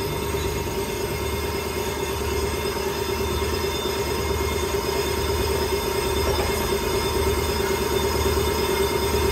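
Brake lathe resurfacing a warped brake disc: the cutting bit skims the spinning rotor with a steady metallic whine and hum, growing slightly louder toward the end. The disc is being trued because it warped from brake heat.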